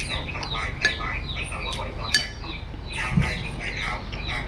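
Small birds chirping repeatedly, with a few sharp clinks of tableware.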